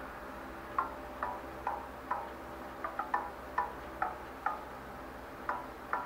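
Music played through a Cherry Mobile Omega X smartphone's built-in loudspeaker: a sparse run of short plucked notes, about two a second, each dying away quickly. The reviewer finds the phone speaker not very loud and light on bass.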